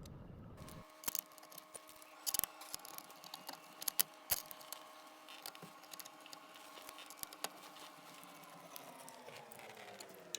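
Light clicks and taps of parts and hand tools as a steering wheel is fitted to the column, most of them in the first few seconds. Under them runs a steady hum that slides down in pitch near the end.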